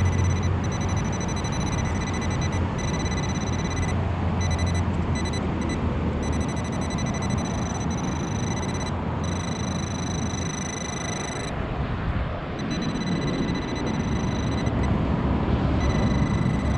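Steady roar of freeway traffic, with a faint steady high whine running over it.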